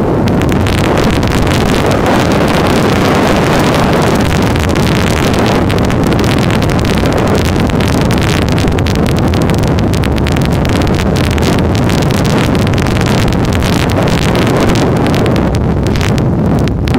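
Loud wind rushing over the microphone during a fast descent down a snow slope, mixed with the rasp of sliding and edging over hard, tracked snow. It eases briefly near the end.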